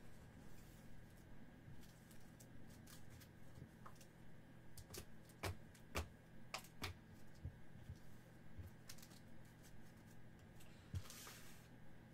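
Trading cards being handled, sorted and stacked on a table: scattered light clicks and taps as cards and stacks are set down, with a brief swish of cards sliding near the end.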